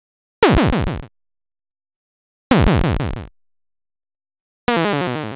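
Three short synthesized electronic sounds, each well under a second, about two seconds apart, with dead silence between them. The first two glide downward in pitch.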